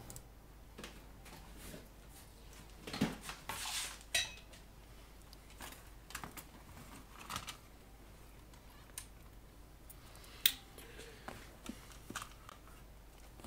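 Faint, scattered clicks, clinks and light knocks as the S1-112A oscilloscope's metal chassis and circuit board are handled and set down on a workbench mat. There is a louder clatter about three seconds in and a single sharp click about ten seconds in.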